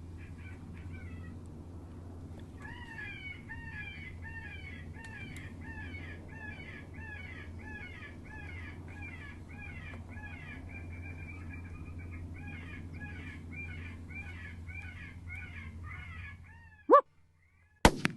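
Electronic predator call playing a rabbit distress cry: high, falling squeals repeating about twice a second. It stops near the end, followed by a short sharp squeak and a single loud crack.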